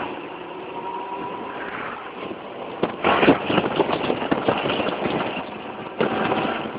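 Motor scooter engine running as it rides along a road, with wind buffeting the microphone, rougher and louder from about three seconds in.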